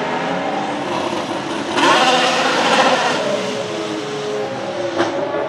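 Renault RS18 Formula 1 car's turbocharged V6 hybrid engine driving away. About two seconds in it gets louder and rises in pitch as the car accelerates, then eases back, with a short sharp crack near the end.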